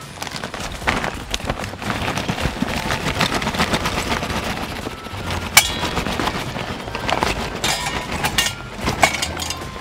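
Hardwood lump charcoal and a firelighter burning in a charcoal burner, crackling and popping irregularly as the charcoal catches. Near the end, more charcoal chunks clatter in from a paper bag.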